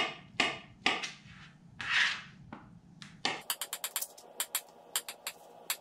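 Kitchen knife slicing through banana and knocking on a plastic cutting board, a knock about every half second. About three and a half seconds in, background music with a quick, ticking beat comes in.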